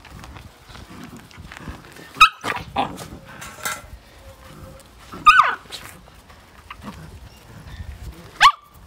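Belgian Malinois puppies, about seven weeks old, tussling over a bite tug, one of them yelping sharply three times, about two, five and eight and a half seconds in; the middle yelp rises and then slides down in pitch.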